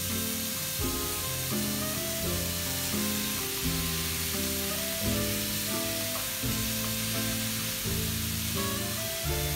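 Pumpkin cubes and mushrooms sizzling as they fry in a pan and are stirred with a spatula, over background music with a melody of changing notes.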